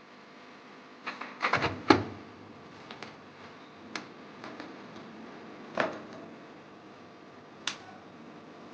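Scattered clicks and knocks of hard parts being handled: a quick cluster about a second and a half in, then a few single clicks spaced a second or two apart.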